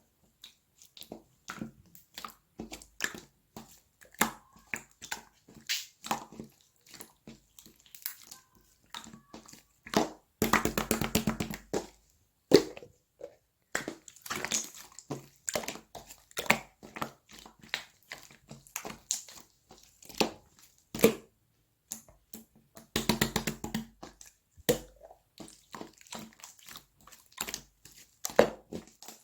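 Slime being squished and poked by hand, making a string of sticky clicks and pops. Two runs of rapid crackling come about ten seconds in and again near twenty-three seconds.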